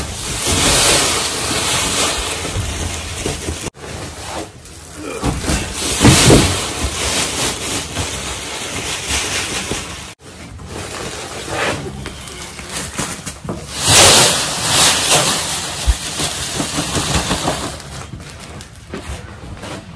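Bags of livestock feed being emptied: pellets pouring out of a woven feed sack with the sack rustling, in louder rushes about a second in, about six seconds in and about fourteen seconds in.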